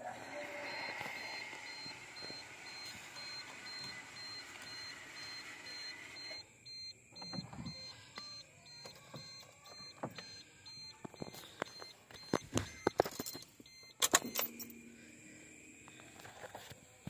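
Car power window motor whirring steadily for about six seconds, then stopping abruptly, with a faint high beep repeating evenly in the background. Later a few sharp clicks and knocks as the power window switch circuit board is handled.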